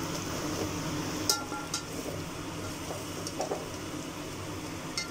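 Sliced onions frying in oil in an aluminium pot, browned, with a steady sizzle, while a perforated metal skimmer stirs them and clinks sharply against the pot a few times.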